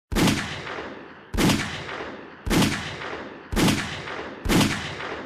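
Five gunshots from a North American Arms Black Widow mini-revolver with a 2-inch barrel, in .22 Magnum (.22 WMR), about a second apart, each sharp crack trailing off in an echo.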